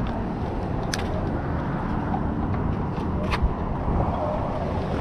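Steady low rumble of road traffic on the bridge, with two sharp clicks, one about a second in and one just after three seconds.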